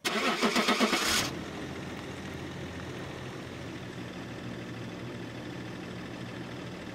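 A car engine starting, loud for about the first second, then idling steadily.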